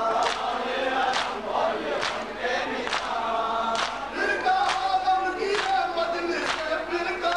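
A crowd of male mourners chanting a nauha (lament) together. The mourners' matam strokes land in unison, a sharp beat a little under once a second.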